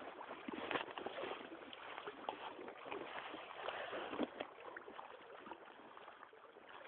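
River water splashing and sloshing irregularly around a person's legs as they wade into a stream, over the steady rush of the current.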